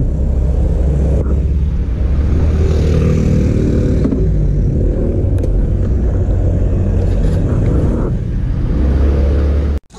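Motor scooter's small engine running as the scooter pulls away and rides on, the engine note shifting in pitch now and then. It cuts off suddenly just before the end.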